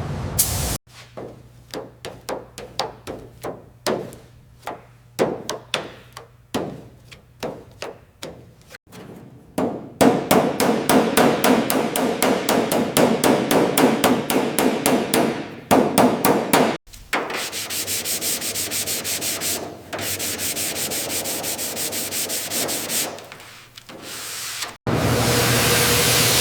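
Sanding strokes, irregular at first, then a quick even run of about five strokes a second, then a steadier rasp. A steady spray hiss starts near the end.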